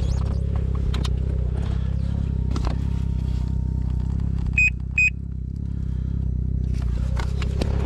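Snowmobile engine running steadily under way, with a few scattered knocks. About halfway through come two short, high electronic beeps.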